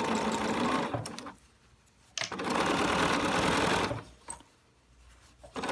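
BERNINA 770 sewing machine stitching binding in short runs. It sews for about a second, stops, runs again for about two seconds, stops, and starts up once more at the very end.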